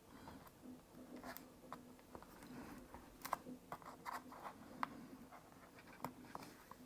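Faint small clicks and light scratching of a small part being handled and pressed into place on a laptop, with a dozen or so scattered ticks.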